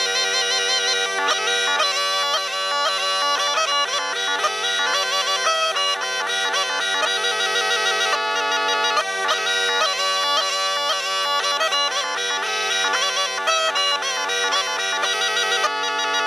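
Folk music played on bagpipes: a steady low drone under a fast, ornamented melody.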